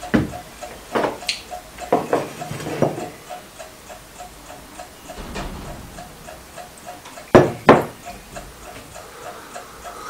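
Chicken clock ticking fast and steadily, about four ticks a second. Over it come sharp clinks of a small porcelain cup and a glass coffee vessel on a wooden table, the two loudest close together near the end.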